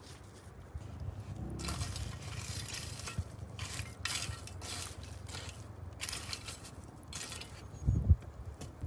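Shovel scraping and stirring through a pit of burnt-down wood coals, the charcoal clinking and rustling in spells, with a couple of low thumps near the end.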